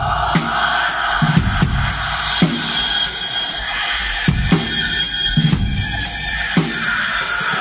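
Live rock band playing: a drum kit keeps a loose beat, with low kick-drum hits about once a second, under a sustained, electronic-sounding drone.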